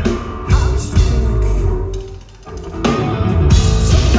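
Rock trio playing live: electric guitar, bass guitar and drum kit. A little past halfway the band briefly drops out, then comes back in with a hard hit.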